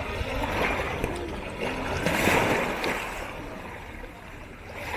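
Small sea waves lapping and washing at the water's edge, with one louder wash about two seconds in that then fades.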